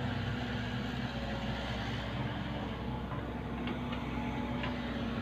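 A vehicle engine running steadily at an even low pitch, with a few faint ticks a little past the middle.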